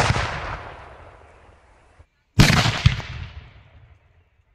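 A homemade gas-filled plastic-can firecracker goes off with a sudden blast that tails off over about two seconds. After a short cut the blast is heard again, with a second sharp crack half a second in. It is a weak, partial blast that only swelled the can and broke its bottom instead of bursting it.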